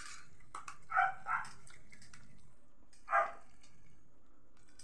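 A dog barking in short single barks: two in quick succession about a second in, then one more just after three seconds.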